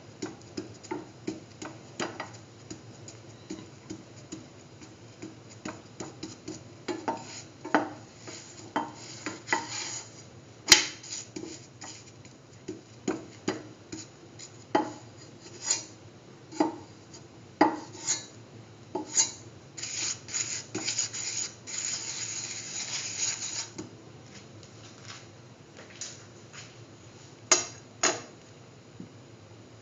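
Metal spatula tapping and scraping against a frying pan while a tortilla is turned over and over: irregular clicks and knocks, with a longer scrape around twenty seconds in.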